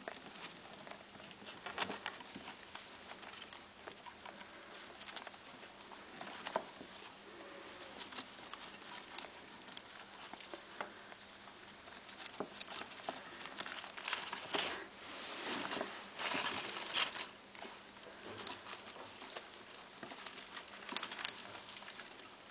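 Pet rats eating spaghetti from a plate: scattered small clicks and short rustles, busiest about two-thirds of the way through.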